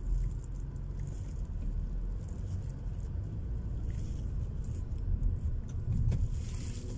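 Low, steady rumble of a vehicle driving, the engine and road noise heard from inside the cabin.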